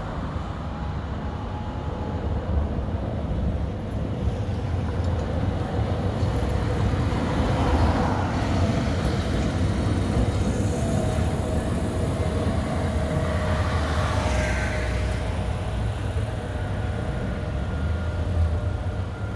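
Toei Arakawa Line 7700-series streetcar passing close by, its running noise swelling about halfway through and a faint steady tone lingering as it moves off, over the steady rumble of road traffic.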